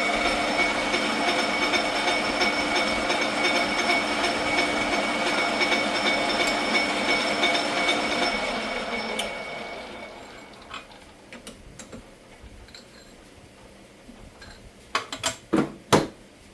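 Metal lathe running steadily, a steady machine hum with several fixed tones, then winding down and stopping about nine seconds in. Light clicks follow, and near the end two or three sharp knocks.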